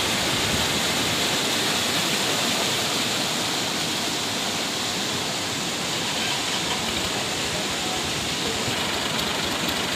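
Fast-flowing muddy floodwater running down a shallow channel: a steady, even rush of water.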